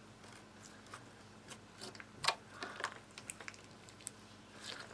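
Hands squishing and stretching glitter slime with small bits mixed in: faint, scattered wet clicks and squelches, the loudest a little past two seconds in.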